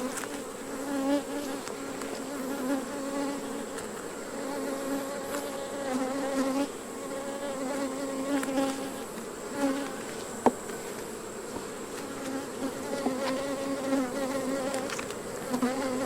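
Honeybees buzzing in a steady, wavering hum around an opened hive during an inspection. A single sharp click comes about ten seconds in.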